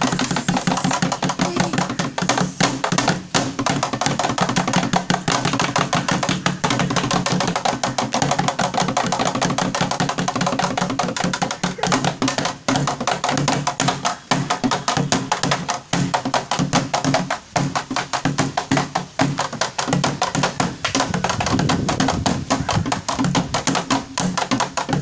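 Sticks beating on plastic jerry cans as improvised drums, a fast, steady dance beat that runs without a break.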